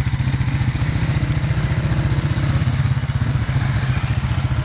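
Off-road vehicle engine idling nearby with a rapid, even putter.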